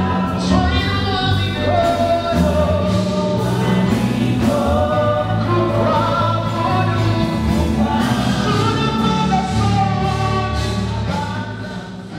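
Gospel choir singing a Swahili worship song with instrumental backing. The music begins to fade out near the end.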